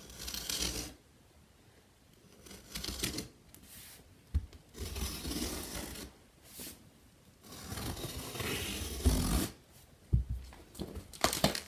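A large cardboard shipping box being handled and shifted about, with scraping and rustling in irregular bursts. There is a sharp knock about four seconds in and another about ten seconds in, and a few clicks near the end.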